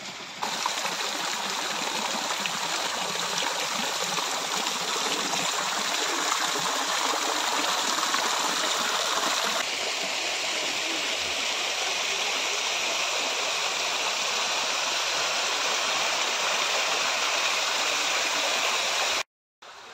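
Steady rush of splashing, running water from an artificial rock waterfall beside a swimming pool. The tone shifts slightly about halfway through, and the sound drops out for a moment near the end.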